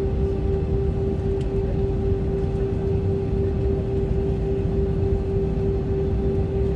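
Airbus A320-232's IAE V2500 turbofan engines running steadily, heard inside the cabin, while the airliner holds still on the runway before its takeoff roll: a constant droning hum with one steady mid-pitched tone over a low rumble.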